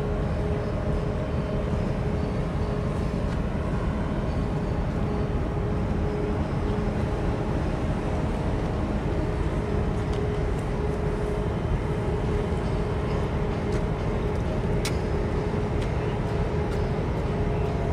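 Steady low rumble of ship engines, with a constant droning hum, from a large bulk carrier and its escorting tug moving close by on the water.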